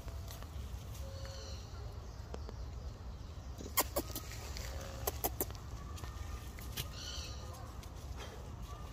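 A few short, high-pitched animal calls, one about a second and a half in and another about seven seconds in, with several sharp clicks between them, over a steady low rumble.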